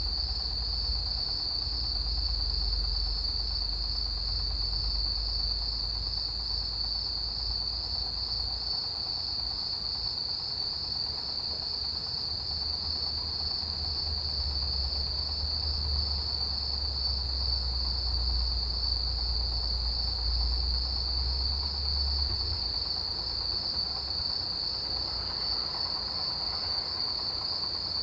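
Autumn field insects chirring: one steady, continuous high trill, with a second, higher insect chirping in short repeated groups over it. A low rumble lies underneath and eases off about two-thirds of the way through.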